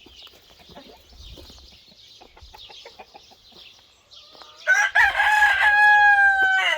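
Chickens clucking softly, then a rooster crowing loudly near the end: one long crow that falls in pitch as it ends.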